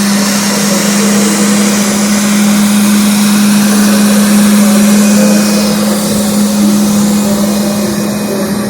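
Baby 43 automatic floor scrubber running: a steady, loud motor hum with a broad hiss over it.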